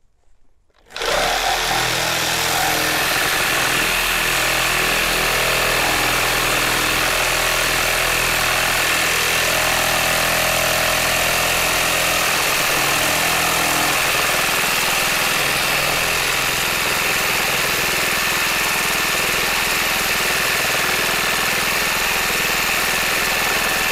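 Makita JR3050T corded reciprocating saw starting about a second in and then cutting steadily through a 150 x 200 mm wooden beam with a Bosch S 2345 X blade, fed by a constant 5 kg load.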